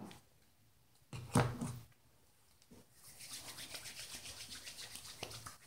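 Hands rubbing a dollop of hair cream between the palms: a rapid, wet rubbing that starts about three seconds in and stops near the end. About a second in there is a brief, louder sound.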